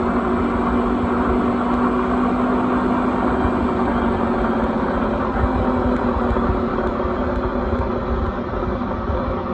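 Bridgeport Series II 4 HP milling machine running, a steady mechanical hum with several held tones; the strongest tone eases off about halfway through.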